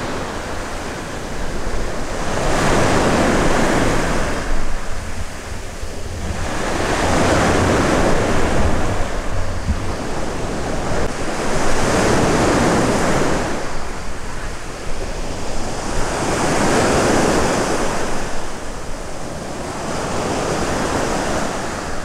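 Small sea waves breaking and washing up a sandy beach, the surf swelling and ebbing about every four to five seconds. Wind buffets the microphone with a steady low rumble underneath.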